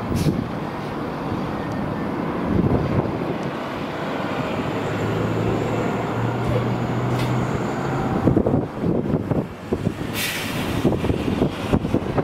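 Jet engine noise from a four-engined Boeing 747 climbing away after takeoff: a steady, low, rough rumble. A brief hiss comes about ten seconds in.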